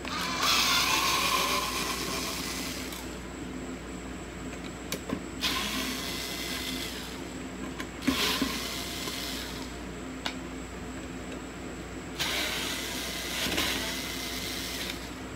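Small cordless electric screwdriver running in four short runs as it backs screws out of a car amplifier's mounting bracket, with sharp clicks of the bit, screws and metal parts in between.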